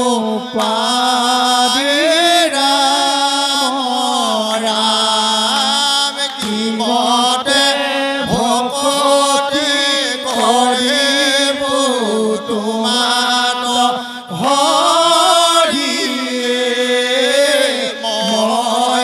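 Men singing Assamese naam, a Vaishnava devotional chant, together: long drawn-out phrases that glide up and down in pitch, with brief breaths between them.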